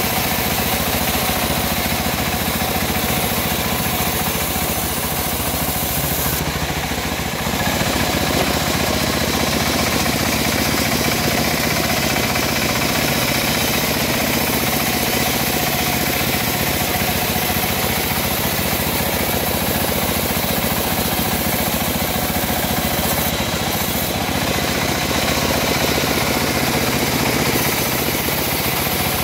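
Homemade band sawmill running steadily, its blade cutting lengthwise through a teak log.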